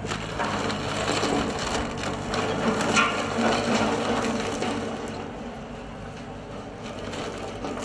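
BushRoller, a heavy diesel machine pushing a large bladed steel roller drum, running under load while the drum crushes bush, with the crackle and snap of branches and shrubs breaking beneath it. It grows quieter over the last few seconds as the machine moves off.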